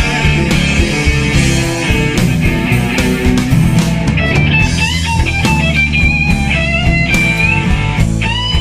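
Blues-rock band recording: drums, bass and guitars playing together, with an electric guitar lead of bent notes coming in about four seconds in.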